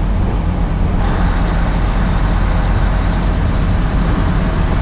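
Semi truck cruising at highway speed, heard from inside the cab: a steady low engine drone with road and tyre noise, the road noise getting a little louder about a second in.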